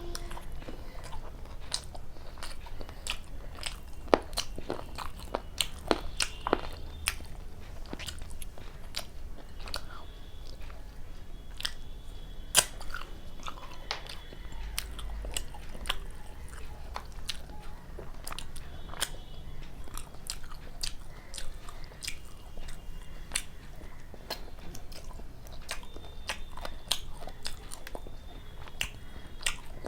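Close-miked eating: chewing and biting on luchi with spicy chicken kosha, full of sharp, irregular mouth clicks and smacks.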